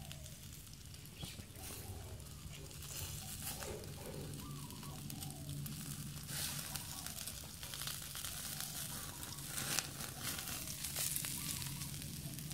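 Marinated pork sizzling and crackling on a wire grill basket over glowing charcoal in a clay stove, as fat drips onto the coals and flares up. A steady hiss with many small crackles, and a few louder pops in the last few seconds.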